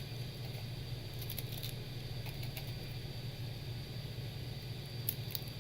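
Steady low electrical hum with a faint high whine, and a few faint light clicks.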